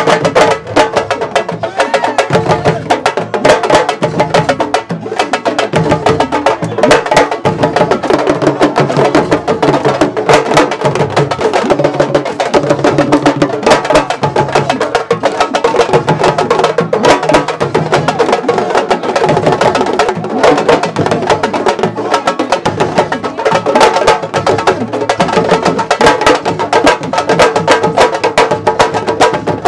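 Fast, dense hand drumming with many sharp strokes, the sabar drum rhythm that Senegalese wrestlers dance to.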